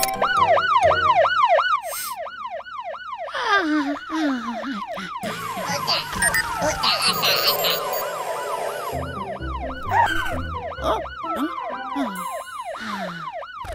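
Cartoon emergency-vehicle siren wailing in a fast rise-and-fall, about three or four cycles a second, with a few falling pitch glides and some music mixed in.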